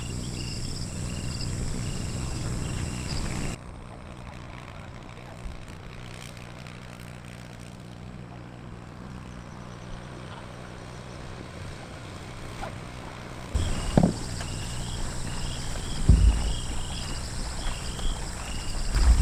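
A chorus of frogs calling in short repeated notes, which cuts off about three and a half seconds in, leaving a steady low rumble. Near the end the calls come back along with a few heavy thumps.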